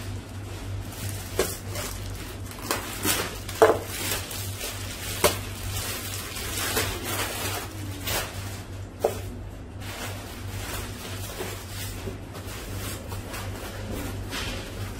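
Raw beef being handled out of its vacuum pack: plastic crinkling, wet meat slapping and sliding on a plastic cutting board and paper towel rustling, with scattered sharp clicks and knocks. A steady low hum runs underneath.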